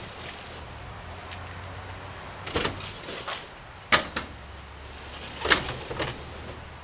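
Canoe hull knocking and scraping against the crossbars of a pickup truck rack as it is slid forward onto the rack: a series of sharp knocks and short scuffs, the loudest about five and a half seconds in.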